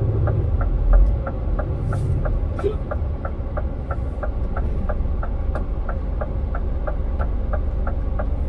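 Turn-signal indicator ticking evenly, about three ticks a second, inside the Scania R450's cab over the low rumble of its straight-six diesel engine. A low thump about a second in.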